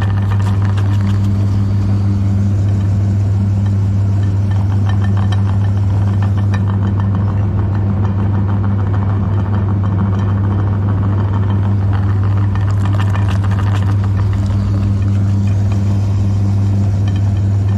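Electric meat grinder running with a steady low hum and a constant crackle on top as it grinds Oreo cookies.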